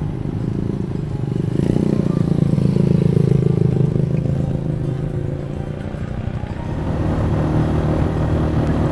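Motorcycle engine running as the bike is ridden, the revs climbing about two seconds in, easing off, then rising again about seven seconds in.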